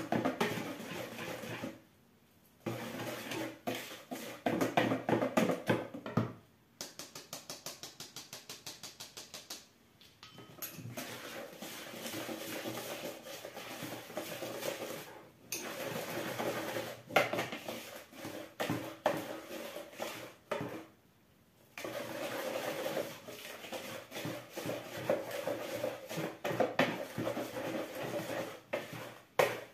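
Wire whisk beating batter in a plastic mixing bowl, clattering in stretches with short pauses. In one run the whisk clicks fast and evenly against the bowl's side, about eight times a second.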